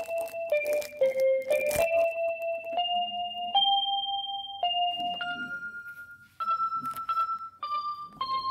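Background music: a simple keyboard melody of held notes stepping up and down, with sharp percussive clicks in the first couple of seconds.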